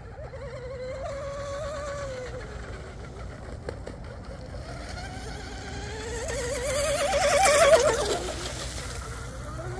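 Whine of the RC outrigger boat's 4082 2000 kV brushless motor running at speed on laps. Its pitch rises and falls as the boat comes near and moves off, faintly about a second or two in and loudest about seven and a half seconds in, when a hiss rises with it.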